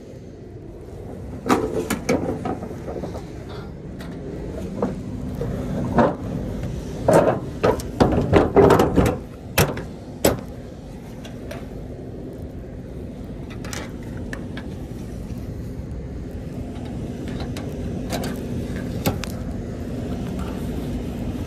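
Knocks and metallic clatter of a steel TIR customs cable being pulled and threaded through the sealing eyelets along the underside of a Schmitz trailer, densest in the first half, over a steady low hum.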